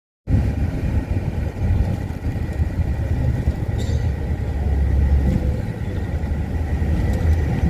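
Shuttle bus on the move, its engine and road noise a steady low rumble, with a faint steady high whine.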